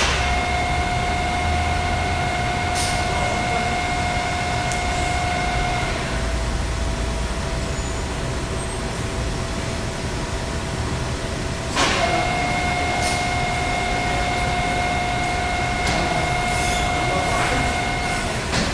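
Machine-shop machinery running: a steady mechanical rumble with a steady whine that comes on with a click, sinks a little lower and fainter after about six seconds, and comes back with another click about twelve seconds in.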